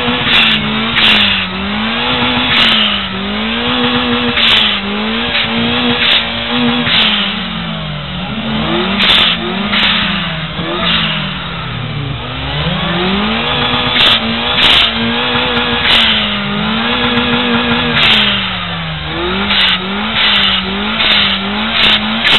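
A turbocharged car engine being revved by hand at the throttle linkage. It is held at high revs, falls away and climbs back again and again, with short sharp bursts of noise throughout.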